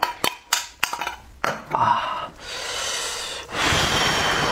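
A few sharp clicks and taps of a metal bowl against food and dish, then the wet tearing and squelching of a cooked, sauce-covered sheep's head being pulled apart by hand, louder near the end.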